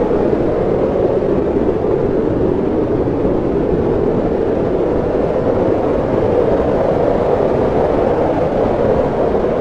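Hurricane-force wind blowing steadily: a dense, loud rushing noise, strongest in the low-middle range, with no gusts or breaks.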